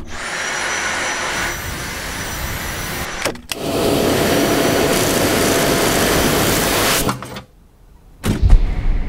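Dyson V7 Animal cordless vacuum running steadily with a faint high whine, then again louder after a brief break; it stops a little after seven seconds in. Near the end comes a loud low clatter as the bin is emptied.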